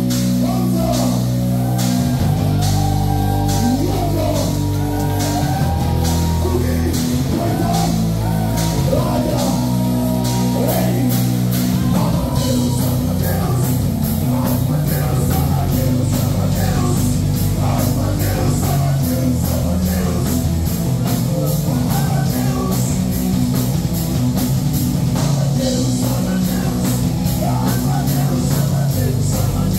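Live rock band playing: a man singing lead over electric guitars and a drum kit keeping a steady beat with cymbals.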